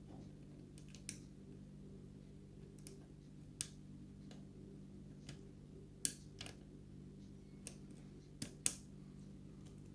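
Lock pick probing the pin stack of a challenge lock under pin-side tension, setting for the binding pin: scattered sharp, light clicks, the loudest two about six seconds in and two near the end, over a steady low hum.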